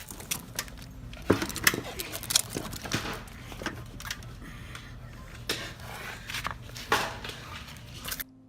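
A dog pushing and scrambling at a plastic doggy-door flap: irregular knocks and clatters, several of them loud, that cut off abruptly near the end.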